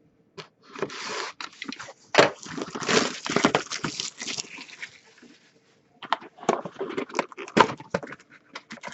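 Plastic wrapping crinkling and tearing as a sealed box of hockey cards is unwrapped, a dense crackle for about four seconds, followed by short clicks and rustles of the cardboard box and packs being handled.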